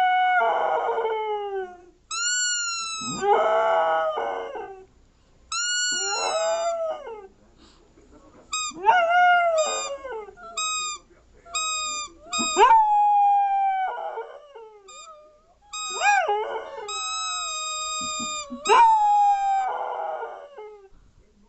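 A dog howling in a string of long, high cries that fall in pitch, answering a whistle whose flat, steady tones sound several times between and under the howls.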